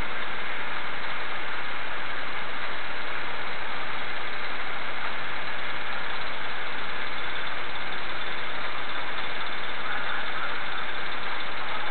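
VexUs plasma ignition firing continuously across a spark plug in a combustion test chamber pressurized to about 100 psi: a steady, even buzzing noise that does not change.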